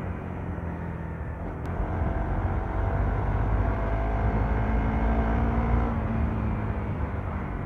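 Motorcycle engine running while the bike is ridden, with a deep rumble of wind and road noise. It grows louder from about two seconds in.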